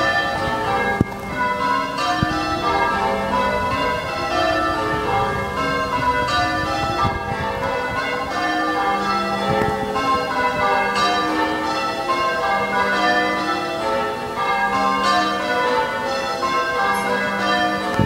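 A ring of six church bells being rung in changes, each bell striking in turn in a continuous, overlapping peal of ringing tones.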